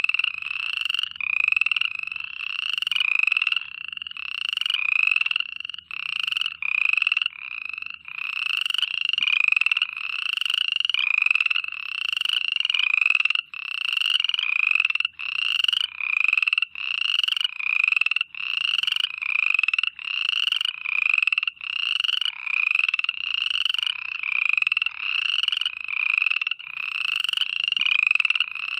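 A chorus of frogs calling at night. Short, slightly rising calls repeat about twice a second without a break.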